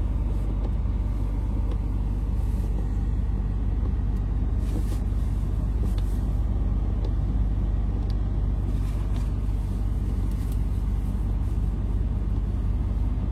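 Steady low rumble of a truck's engine running, with a few faint ticks and clicks over it.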